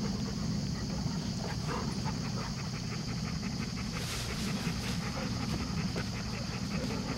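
Retriever-type dogs panting in quick, repeated breaths, tongues out after digging and playing, with a brief rustle about four seconds in.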